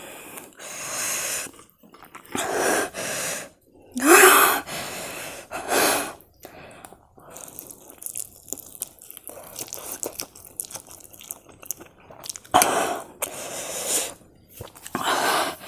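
A person eating extremely spicy Korean instant noodles, with short, sharp breathy exhales and gasps from the chili burn, the loudest about four seconds in. Between them, quieter chewing and mouth clicks.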